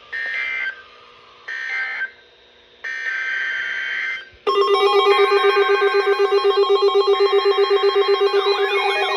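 NOAA Weather Radio SAME data bursts, short screeching two-tone bursts: three brief end-of-message bursts, then a longer alert-header burst about three seconds in. At about four and a half seconds a crowd of weather radios sets off their alert alarms together, many beeping and pulsing tones at once, with warbling siren-like tones joining near the end. The radios are being triggered by the incoming Winter Storm Warning.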